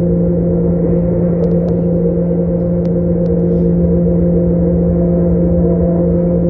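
Diesel multiple-unit passenger train running, heard from inside the carriage: a steady engine drone over rumble from the wheels and track.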